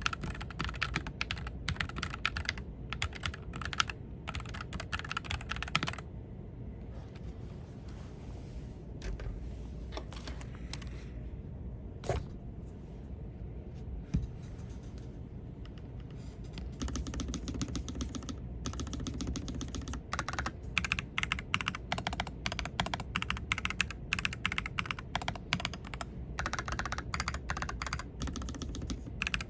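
Typing on a pre-lubed Nuphy mechanical keyboard: fast runs of key clicks that pause for about ten seconds after the first six, with a lone keystroke in the pause, then resume.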